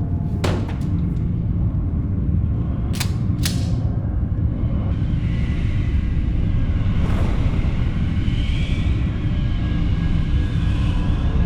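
Deep, steady rumble, like a large vehicle, with sharp swishing strokes about half a second in and again around three seconds in. From about five seconds a hiss and wavering high tones are layered over it.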